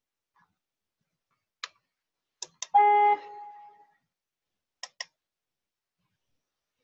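Computer mouse clicks, single and in quick pairs, while a note is edited in Sibelius. About three seconds in, the program plays back one organ note briefly when the note is selected; this note is the loudest sound.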